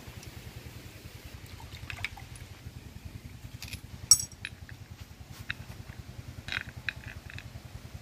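Nuts, bolts and an iron pipe flange clinking and scraping as they are handled by hand, with one sharp metallic clink about four seconds in. A steady low pulsing engine hum runs underneath.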